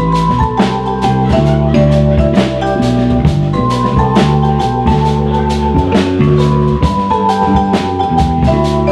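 Live instrumental jazz trio: vibraphone notes ringing and held over an electric bass line and a drum kit keeping a steady, busy beat.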